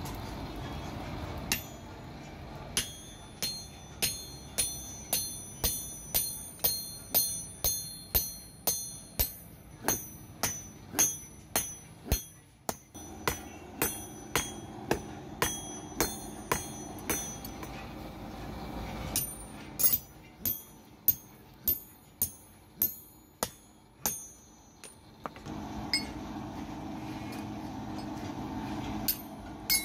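Hammers striking red-hot leaf-spring steel on an anvil, a run of ringing blows about two a second that pauses briefly twice.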